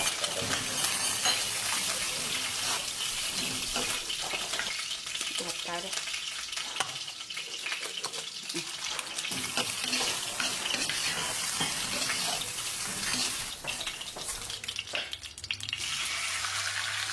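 Food frying in a pan: a steady sizzle with many small crackles.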